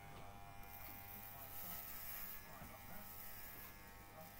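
Electric hair clippers buzzing steadily as they are run through a man's hair, cutting it short.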